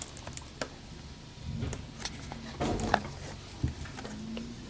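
Boxed action-figure packaging being handled: scattered light clicks and rustles of plastic and cardboard, with a sharper click about three seconds in.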